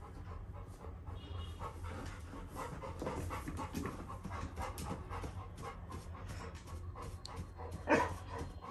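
Labrador retriever panting in a quick steady rhythm, with one louder short sound near the end.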